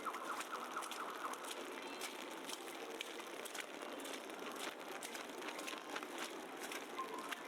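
Footsteps crunching through fresh snow at a walking pace, about two steps a second, over a steady hiss of city background.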